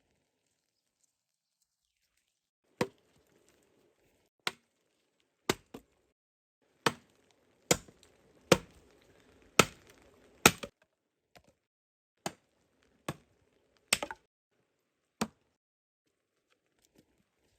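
Chopping: about a dozen sharp, separate strikes, roughly one a second and unevenly spaced, loudest in the middle.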